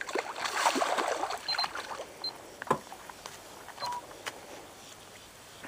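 A hooked bass thrashing and splashing at the water's surface beside the boat for the first couple of seconds, then a few sharp clicks and knocks.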